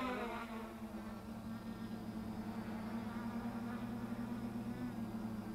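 Quadcopter's electric motors and propellers buzzing steadily as it hovers low over the ground.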